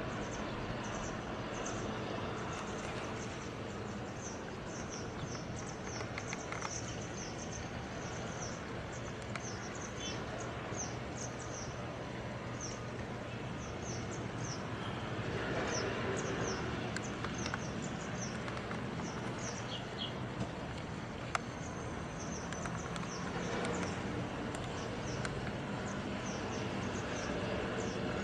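Outdoor ambience: a steady run of short, high chirps, about two a second, over a constant hum and hiss.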